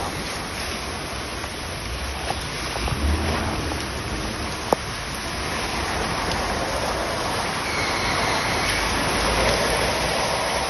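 Downpour rain and floodwater washing around a car driving through a flooded street, heard from inside the car, with one sharp knock a little before the halfway mark.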